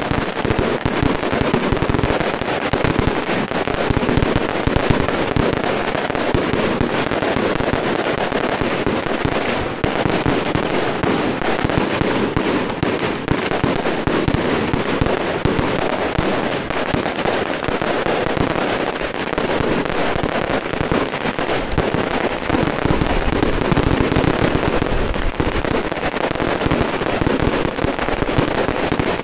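Firecracker strings and fireworks going off in a dense, unbroken barrage of rapid bangs and crackles.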